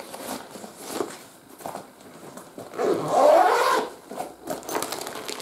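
Fabric tripod carrying bag being handled: rustling and light knocks, with a louder sound of about a second that slides in pitch, about three seconds in.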